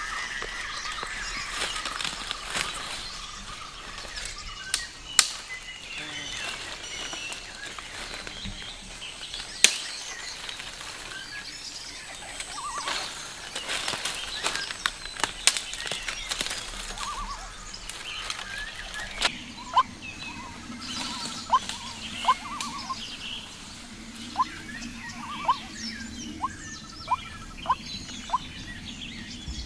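Dry branches and twigs rustling and snapping as they are pulled out of forest undergrowth, with a few sharp cracks. About two-thirds of the way through the sound changes to short bird chirps repeating about once a second over a low steady hum.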